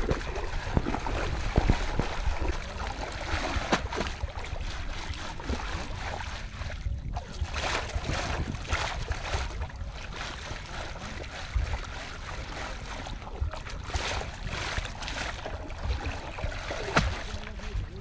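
Water sloshing and splashing irregularly as a woven bamboo basket of shrimp and small fish is dunked and swirled in shallow muddy river water to wash the catch.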